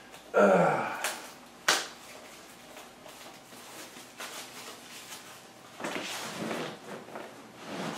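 Cardboard software box being handled and opened by hand: a loud rustle about half a second in, a sharp snap shortly after, and softer scraping near the end.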